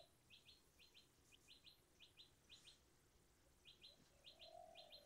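Near silence with faint bird chirps: short high notes in quick pairs, about twice a second, pausing briefly midway.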